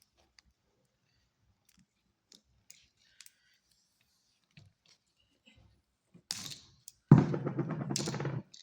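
Electrical tape being pulled off the roll while it is wrapped around an outlet: a short pull a little over six seconds in, then a longer, louder pull of about a second and a half near the end. Before that, only faint small clicks of handling.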